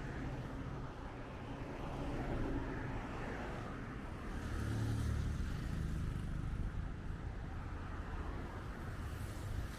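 Road traffic: motor vehicles running along the road, with a louder low rumble swelling about halfway through as one passes close.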